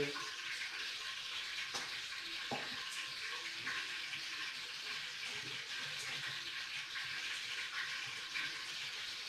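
Steady sizzling hiss of oil heating on a gas stove, with a few faint taps as cut potato sticks are dropped into a bowl by hand.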